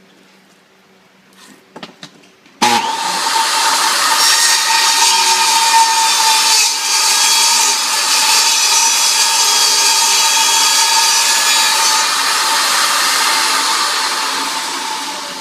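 Table saw starting abruptly about two and a half seconds in and running steadily as it cuts through a laminate floor plank, beginning to wind down near the end. A few light knocks come before it starts.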